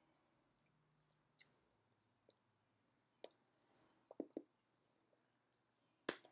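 Near silence broken by a few sharp clicks and taps of hands meeting and brushing while signing, the loudest near the end.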